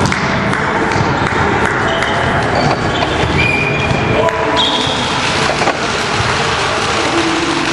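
Busy sports-hall din: volleyballs being hit and bouncing on the gym floor amid overlapping voices.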